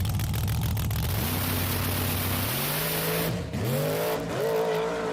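A car engine revving hard as it accelerates, its pitch climbing, dropping sharply about three and a half seconds in, then climbing again, over loud road and tyre noise.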